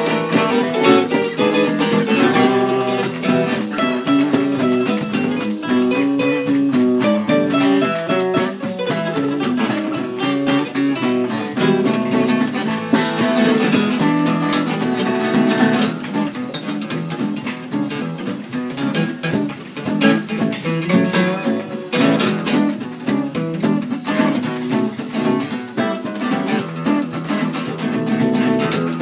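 Acoustic guitar played without a break in an improvised blues jam, a mix of picked notes and strummed chords.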